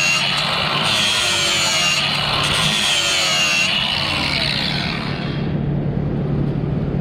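DeWalt 20V cordless angle grinder with a sanding disc grinding the steel plate of a wood stove around a crack, its whine wavering in pitch as the disc bears on the metal. It stops about five seconds in.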